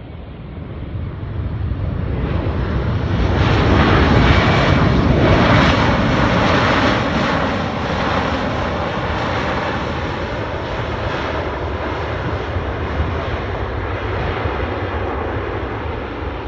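Airbus A320 airliner's jet engines during the landing roll, a loud rushing roar that builds over the first few seconds, peaks about four to six seconds in as the plane passes, then holds steady and a little lower as it moves away down the runway.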